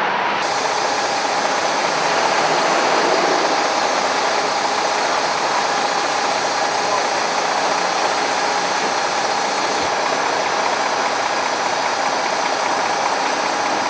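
A vehicle engine running steadily: a constant, even mechanical noise with no changes in speed.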